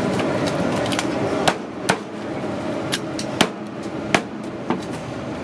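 A long, machete-like knife chopping roast pork on a wooden cutting board: about six sharp, irregular chops from about a second and a half in, over a steady background din.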